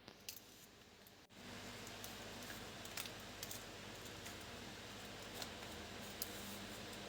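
Faint scattered clicks and light taps of small hard objects being handled, over a steady low hiss and hum that comes up about a second in.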